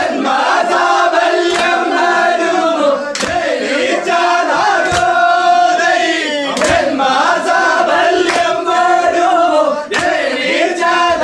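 A group of men chanting a vanchipattu boat song loudly in unison, in long held phrases, kept in time by sharp claps about every second and a half.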